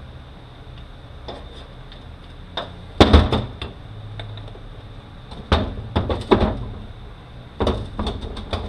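Scattered clanks and knocks of metal transfer-case parts being handled during disassembly, coming in short groups, the loudest cluster about three seconds in.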